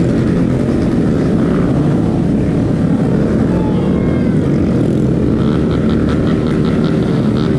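Motorcycle engine running steadily under throttle through a wheelie, with heavy wind noise rushing over the microphone.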